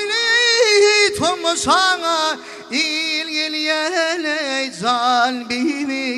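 Live Turkmen folk music: a melody with sliding, ornamented notes over a steady held drone note, from a stage ensemble accompanying a song.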